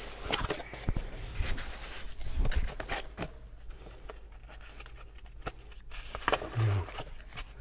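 Cardboard shipping box and its packing handled by hand, the flaps rustling and scraping with light clicks and knocks. The handling is busiest in the first three seconds and quieter after.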